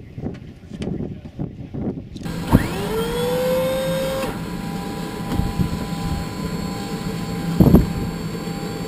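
Inside a CT-114 Tutor jet's cockpit before engine start, a whine rises quickly and levels off, holds for about two seconds, then cuts off. A steady hum and a couple of dull thumps follow. Before that, for about two seconds, there is outdoor wind rumble and knocking.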